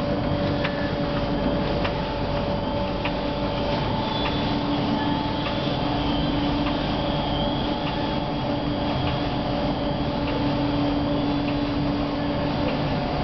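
Heidelberg Speedmaster SM 102 two-colour sheetfed offset press running: a steady mechanical hum with several held tones and scattered light clicks.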